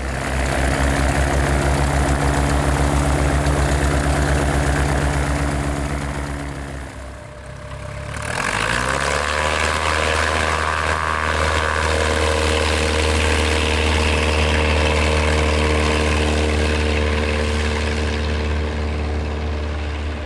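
Van's RV-6A light airplane's Lycoming four-cylinder engine and propeller running steadily. It dips about seven seconds in, then rises in pitch as power is added and holds steady at the higher pitch.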